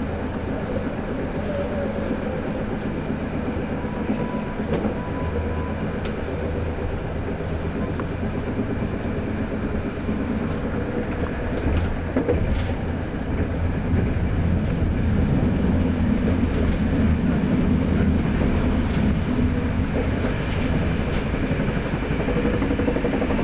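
Running noise of a moving ÖBB passenger train heard from inside the carriage: a steady low rumble of wheels on track, growing a little louder about halfway through.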